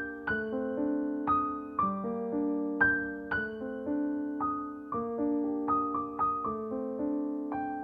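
Gentle solo piano music: soft chords and melody notes struck about every half second, each ringing and fading before the next.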